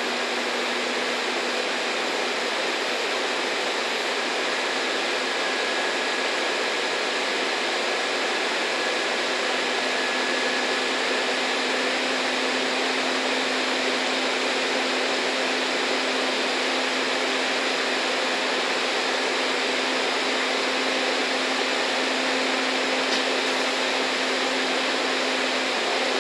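EF65 electric locomotive's cooling blowers running with a steady rushing hum as the locomotive stands ready to depart.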